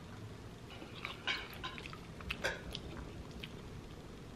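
A person chewing a mouthful of food: faint wet mouth clicks and smacks, a few at a time, about a second in and again around the middle.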